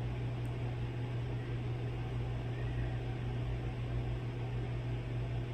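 Steady low hum under an even hiss, unchanging throughout, with no distinct events.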